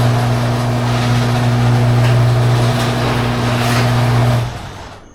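Garage door opener motor running steadily as the door travels, a loud hum with the rattle of the drive and door, cutting off about four and a half seconds in as the door reaches its stop.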